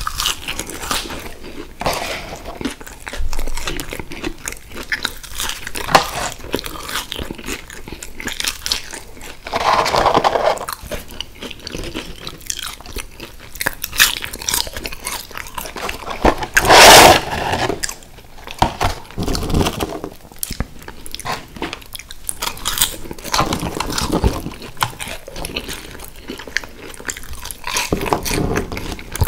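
Close-miked chewing and crunching of McDonald's french fries, with many small mouth clicks and a louder burst a little past halfway.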